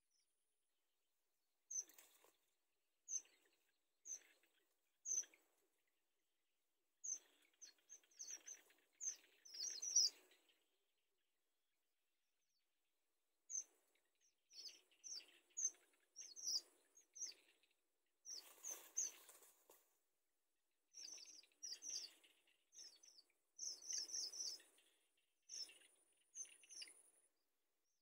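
Irregular bursts of short high-pitched cheeps from bittern nestlings in the nest, with soft rustling of nest grass under some of them.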